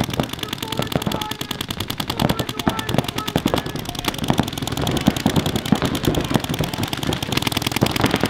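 Paintball markers firing fast, continuous strings of shots, several guns at once, the cracks overlapping into a rapid rattle.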